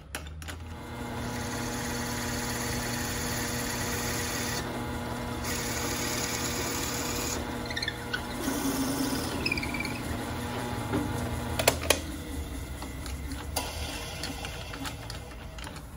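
Drill press running as a twist bit bores into a SpectraPly pen blank clamped in a drilling jig: a steady motor hum under a cutting hiss, and the hiss thins briefly twice. A few sharp clicks come about twelve seconds in, and the motor hum ends soon after, leaving only handling sounds.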